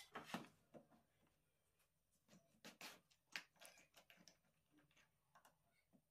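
Faint, scattered clicks and light knocks of hand handling: a steel square and a plywood piece set down on a table saw, then metal toggle clamps on a crosscut sled being opened and closed.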